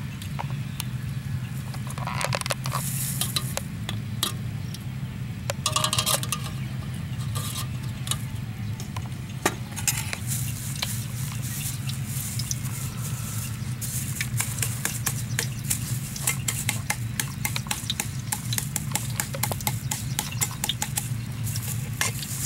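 Food-preparation handling: many small irregular clicks, taps and rustles from a knife, plate and plastic bag being worked by hand, over a steady low hum.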